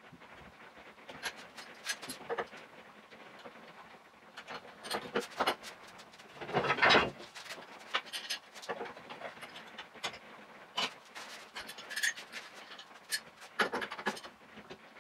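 Workshop handling noise in fast motion: rapid clicks and knocks of F-clamps and hand tools being handled and set down on a wooden workbench. A louder rushing noise comes about seven seconds in.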